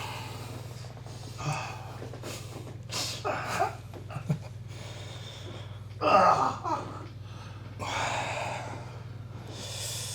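A person breathing heavily, with several loud gasps and exhales, over a steady low hum.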